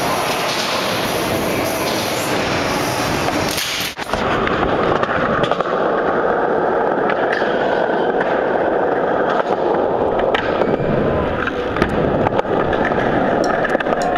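Skateboard wheels rolling on smooth concrete, with a cut about four seconds in; later the board grinds along a metal handrail, and a few sharp clacks of the board come near the end.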